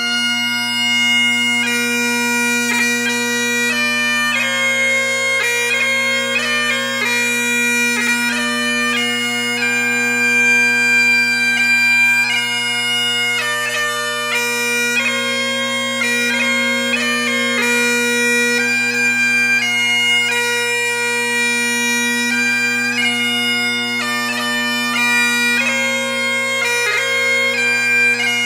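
Bagpipe music: a melody played over steady, unbroken drones.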